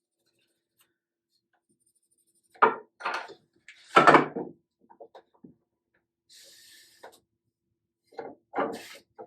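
Hand joiner plane taking short strokes across a wooden board, a run of brief scraping, rasping strokes and knocks of wood. It is planing corner to corner to bring down two high corners while flattening the board.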